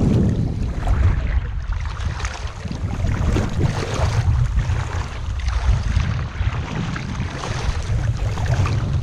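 Legs wading through shallow seawater, sloshing and swishing with each stride, over a low rumble.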